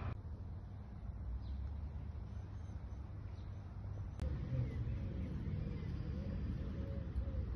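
Steady low outdoor background rumble with a few faint bird chirps. A sharp edit click comes about four seconds in.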